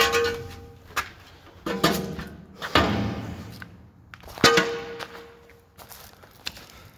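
Footsteps clanking on rusty steel stairs and walkway: a handful of heavy metallic knocks about a second apart, two of them ringing briefly, growing fainter near the end.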